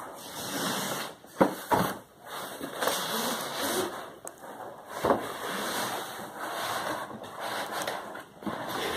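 A printed retail box sliding out of a long cardboard shipping box: cardboard scraping and rubbing on cardboard, with a few knocks as the boxes are tipped and set down.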